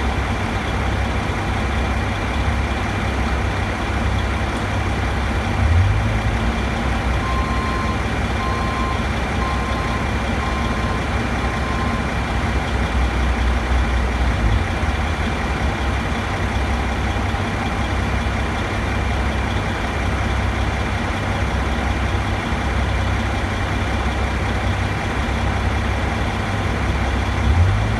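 Heavy diesel engine of the construction machinery lifting the glass, running steadily at idle with a faint steady high whine over it. About a quarter of the way in comes a string of five or six evenly spaced warning beeps, like a backup alarm, and another beep starts at the very end.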